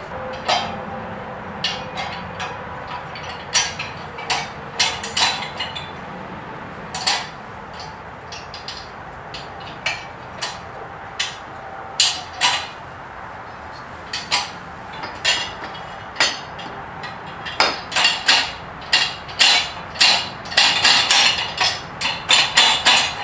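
Steel parts of a manual tire changer clinking and knocking against each other and the wheel rim as they are fitted together: irregular sharp metallic taps and clicks, coming thick and fast near the end.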